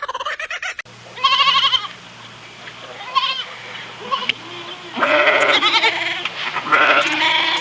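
Goats bleating: about four wavering calls, two of them short and two longer and louder in the second half.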